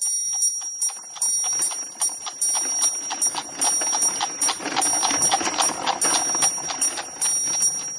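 Rapid, even ticking over a steady high ringing tone, like a clockwork or ringing-bell sound effect.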